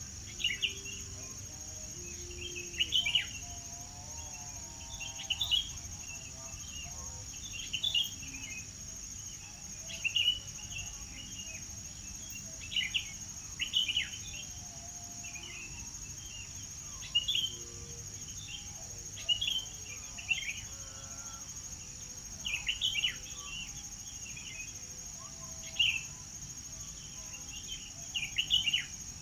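Birds singing in short, bright chirping phrases every second or two over a steady, high-pitched insect drone, with fainter, lower bird calls in between.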